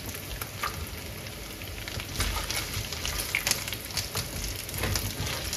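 Pork ribs sizzling and crackling in their own rendered lard in a frying pan, with a few sharper knocks as onion slices drop in and a spatula stirs the meat.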